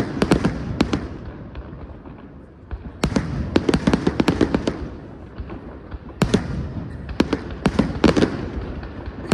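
Fireworks from a castillo, a pyrotechnic tower, going off in three volleys of rapid crackling bangs: one at the start, one about three seconds in, and one about six seconds in.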